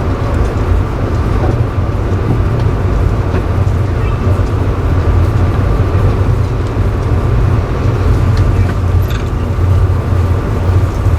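Steady low rumble of a moving passenger train heard from inside the car, with a faint steady high hum above it.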